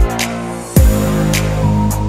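Electronic background music: a deep kick drum that drops in pitch, sharp high percussion hits and held chords.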